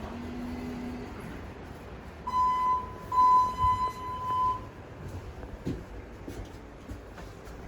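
Electronic beep: a short steady tone, then a longer one lasting about a second and a half.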